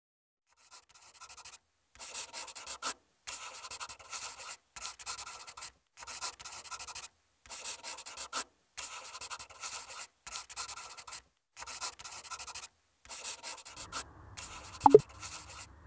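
Marker-writing sound effect: scratchy, squeaky pen strokes in about eleven bursts of roughly a second each, separated by short pauses. Near the end a low hum comes in, and a short falling tone sounds, the loudest moment.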